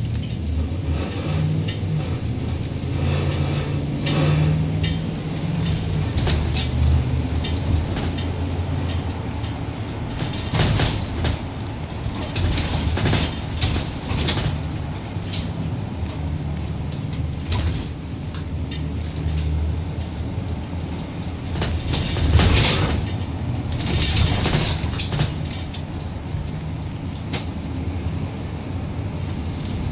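Cabin noise inside a moving 2017 GMC Arboc low-floor bus: a steady low rumble from the drivetrain and road, with frequent rattles and clunks from the body and fittings, heaviest in two stretches about a third of the way in and again about three quarters of the way through.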